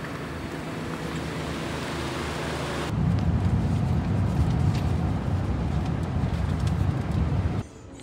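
Vehicle running with road noise, a steady rumble. About three seconds in it switches abruptly to a louder, deeper rumble, which cuts off sharply near the end.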